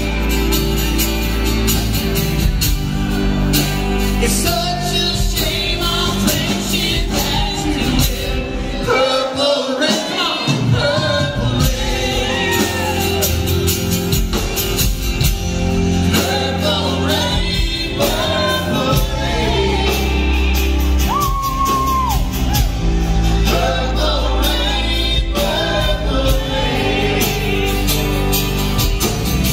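Live band playing a country-rock song with sung vocals, acoustic and electric guitars, bass and drums. About nine seconds in, the bass and drums drop out for a couple of seconds while the singing carries on.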